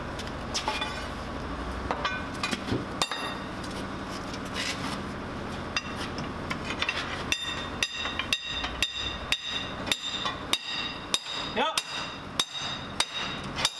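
Hammer blows on steel tank-track hardware, about two a second, each strike ringing. They begin about halfway through, after a few scattered knocks. They come as a tool is tapped in to work a Sherman tank's track loose.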